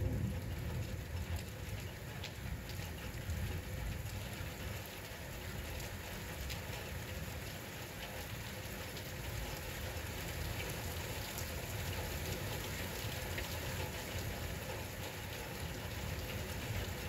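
Steady heavy rain falling on hard surfaces, an even pattering hiss with scattered drop ticks, over a continuous low rumble.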